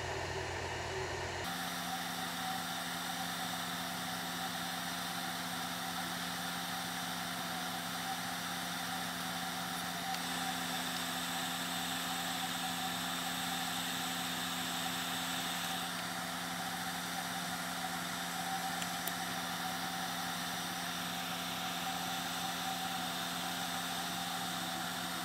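Hot air rework station blowing a steady rush of air with a low, even hum while it heats a surface-mount zero-ohm resistor to melt its solder.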